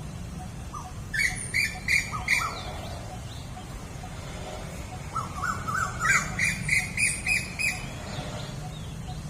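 Birds squabbling: two bouts of rapid, harsh squawking calls, each a quick run of about five notes a second, the second bout longer and rising in pitch at its start.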